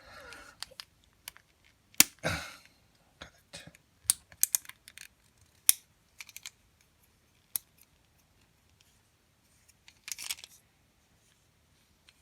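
Spring-loaded push-to-open cabinet door catch being handled and pressed by hand, giving scattered sharp clicks and short rattles of its plastic housing and metal hook. There is a quick run of clicks about four seconds in and a longer rattle about ten seconds in.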